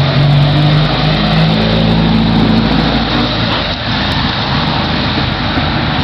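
A car driving past on the street, its engine running steadily, with tyre and traffic noise.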